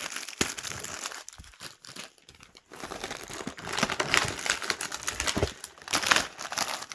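Packaging crinkling and rustling as items are lifted out of a parcel and handled, with a short lull about two seconds in.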